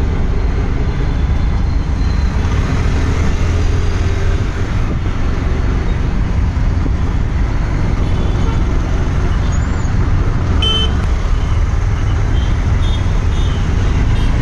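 Dense city street traffic: a loud, steady rumble of scooter and car engines and road noise, with short horn toots a little past the middle and a few more near the end.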